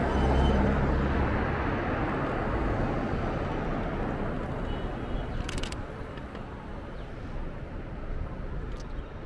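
Road traffic on a busy multi-lane city street, loudest at first as a car passes close and then easing off. A camera shutter clicks once about halfway through.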